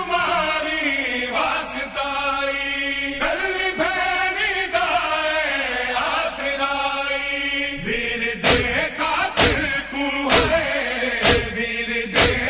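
Unaccompanied male voices of a noha party chanting a Punjabi lament in long, wavering phrases. About eight seconds in, rhythmic chest-beating (matam) joins: sharp thumps about once a second under the voices.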